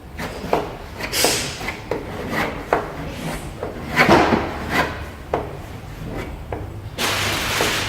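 A filler spatula scraping soft body filler across a car body panel, drawn down flush, in repeated short strokes with sharp taps between them. A longer, steadier scrape comes near the end.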